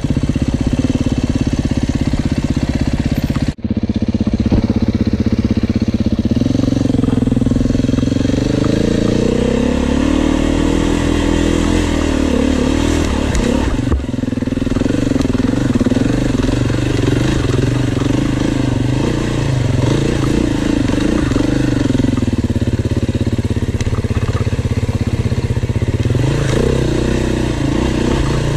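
A 2021 Beta 390 RR-S dirt bike's four-stroke single-cylinder engine runs under way on a trail, its pitch rising and falling as the throttle is worked. The sound cuts out for an instant about three and a half seconds in and dips briefly again at about fourteen seconds.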